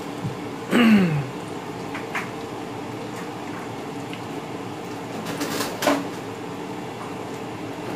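Kitchen sounds at a stove: a steady low hum, a short falling vocal sound about a second in, and a few light clicks and clatters, with a rustle ending in a knock near six seconds.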